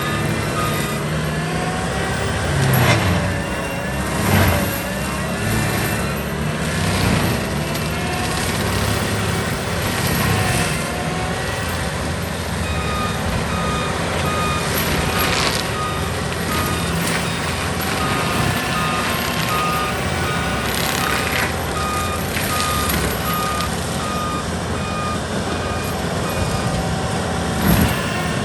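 CMI C175 forestry mulcher running steadily under load while clearing sweet gum trees, with sharp cracks and snaps as the trees are broken and ground. A backup alarm beeps over and over through much of the second half.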